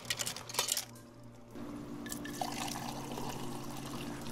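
Water from a soda fountain nozzle pouring into a plastic cup of ice, stopping under a second in. A steady low hum follows.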